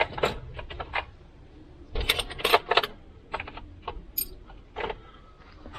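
Metal hand tools clinking and rattling as they are handled from a toolkit: irregular sharp clinks, a dense flurry about two seconds in, and one brief metallic ring just after four seconds.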